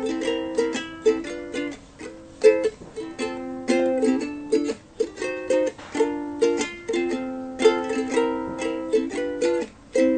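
Instrumental break of an acoustic pop song: strummed plucked-string chords in a steady rhythm, with no singing.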